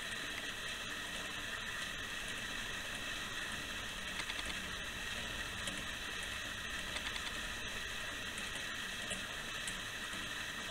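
Antique clockwork roasting jack running, its gear train giving a steady whir with faint scattered ticks.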